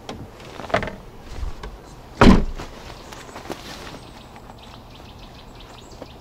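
SUV tailgate being slammed shut: one heavy thump a little over two seconds in, with a lighter knock shortly before it.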